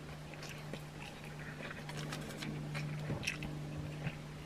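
Close-up chewing of a mouthful of steak sub sandwich: irregular wet mouth clicks and smacks, over a steady low hum.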